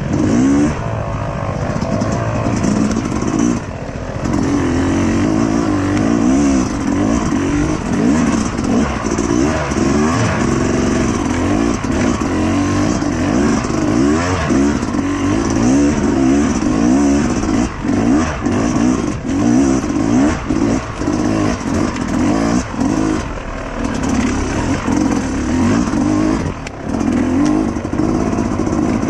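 Dirt bike engine ridden off-road, its revs rising and falling continually as the throttle is worked and released.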